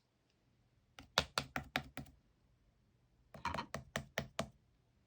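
Slime being pressed and squeezed by hand, giving quick runs of sharp clicks and pops: one burst about a second in and another past three seconds.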